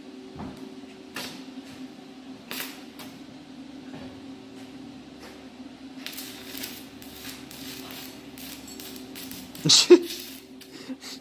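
Stick (arc) welder sputtering on the hatch metal: a steady electrical hum with scattered crackles, then a run of dense crackling from about halfway and a louder burst of crackle near the end. The arc keeps going on and off, barely holding.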